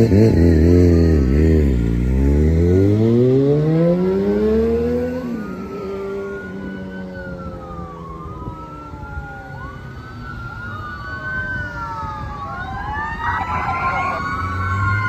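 A passing vehicle's engine revs up, its pitch climbing steeply as it pulls away. Then the sirens of a 2017 Pierce Enforcer fire engine, still well down the road, grow louder. Slow rising and falling wail sweeps overlap, and near the end they switch to a fast yelp with a low rumble underneath.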